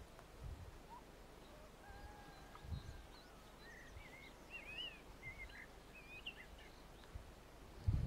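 Faint open-air ambience with distant birds chirping in short, high, rising-and-falling notes from about two seconds in to past six, and a few low bumps on the microphone.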